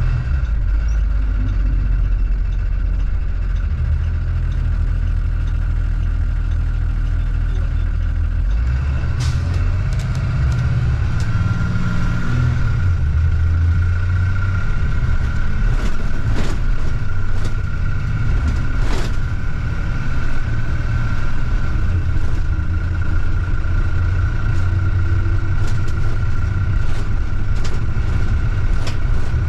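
Blue Bird school bus heard from inside the cabin: the engine runs low and steady, then pulls away and rises in pitch about a third of the way in. From then on a steady high whine and frequent rattles and clicks from the bus body go on as it drives.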